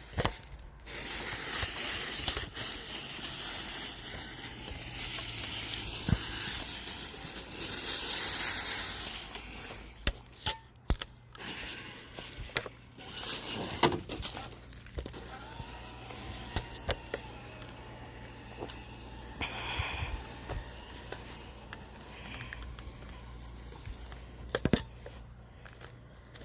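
Traxxas TRX-4 Defender RC crawler driving over loose dirt and rocks: crunching and crackling of its tyres on the ground, dense for the first ten seconds or so, then quieter with scattered sharp clicks and knocks.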